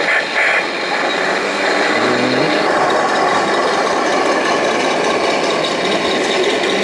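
1/16-scale RC tanks running: a steady mechanical clatter of gears and tracks, with a short rising motor whine about two seconds in.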